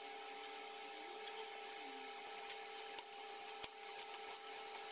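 Small clicks and ticks of thin toaster filament wire being handled and unwound from a toaster's element card, scattered through the second half, over a steady faint hum.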